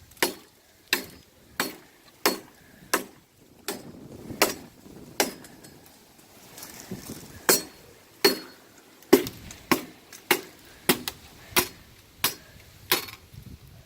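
Repeated chopping blows on wood, close to twenty sharp strikes at one to two a second, with a short pause midway and quicker strikes afterwards; the wood is starting to split.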